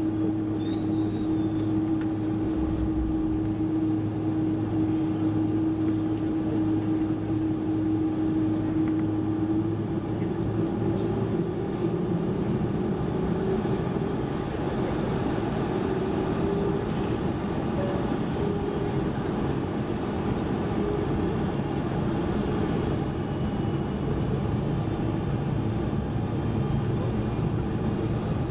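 Steady cabin noise inside a Boeing 747-400 with its jet engines running before takeoff: a constant hum and rumble. About ten seconds in, the hum wavers and a rougher rumble takes over.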